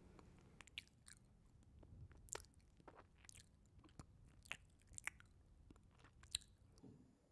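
Faint, irregular crackling and ticking, about three small clicks a second, from a cotton candy machine's spinning head as the sugar melts and smokes. The crackling stops just before the end.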